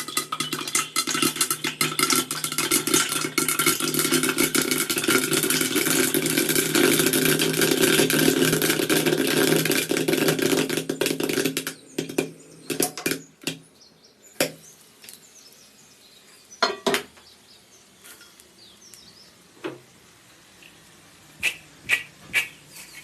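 Popcorn kernels popping: a dense, rapid crackle of pops for about the first twelve seconds, then thinning suddenly to scattered single pops a second or more apart, the sign that the batch is nearly done popping.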